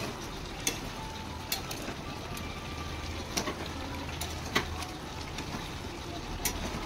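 A steel spoon stirs a thick chicken curry in a steel kadai, giving about five sharp clinks of metal on the pan over the steady sound of the curry cooking on the gas burner.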